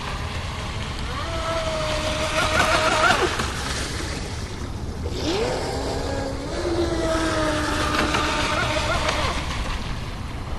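Pro Boat Widowmaker RC boat's electric motor whining across the water, its pitch rising and falling with the throttle, over a steady hiss. The whine is strongest twice, with a lull in between.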